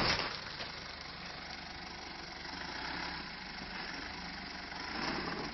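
Mitsubishi Montero's engine running low and steady, near idle, as the 4x4 crawls over a loose dirt mound. There is a brief burst of noise right at the start and a slight swell about five seconds in.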